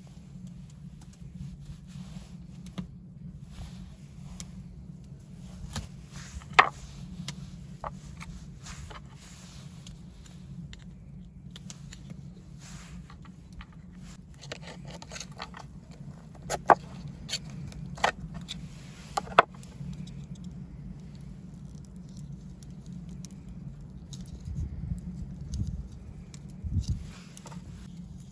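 Hands working jute twine and a knife on a wooden cutting board: rustling and scraping, with a few sharp knocks of the knife on the wood, one about a quarter of the way in and three close together just past the middle, over a steady low hum.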